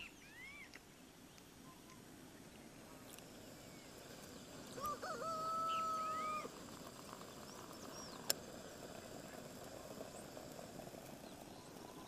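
A rooster crows once, about five seconds in, ending on a long held note, over faint chirps of small birds. A single sharp click comes a few seconds later.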